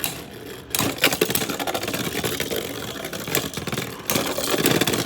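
Plastic Beyblade X tops and stadium rattling and clicking rapidly, with a sharper click about a second in.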